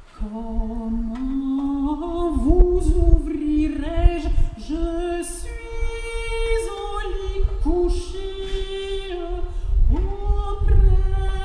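A woman singing solo and unaccompanied, holding long notes with slides between pitches. Wind rumbles and buffets on the microphone underneath.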